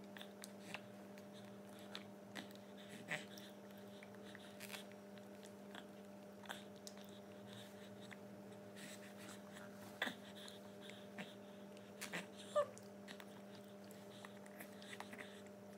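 Quiet feeding sounds as a baby is spoon-fed puree from a plastic spoon: scattered small clicks and mouth smacks over a steady low hum, with a brief soft sound from the baby about twelve seconds in.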